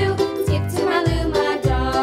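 Background music with a steady bass beat about twice a second under a bright melody.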